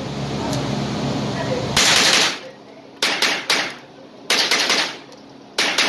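Thompson/Center TCR22 .22 LR semi-automatic rifle fired rapidly in quick strings of about three shots, with a sharp echo off the walls of an indoor range. Before the first string there is a steady hum.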